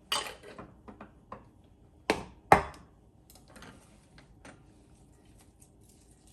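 Kitchen handling clatter: a knock and rattle at the start, a few light clicks, then two sharp knocks about half a second apart just after two seconds in, the loudest of them the second. It fits a container of onions being closed up and set down.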